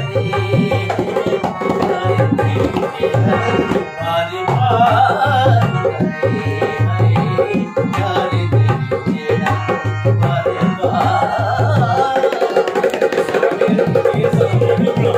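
Harmonium playing held tones over a steady hand-played dholak rhythm. Twice a singing voice comes in with long, wavering melodic lines.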